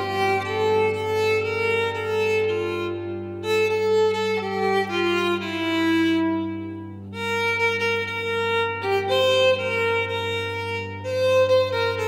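Violin playing a slow melody in held, phrased notes over a steady low note sustained beneath it.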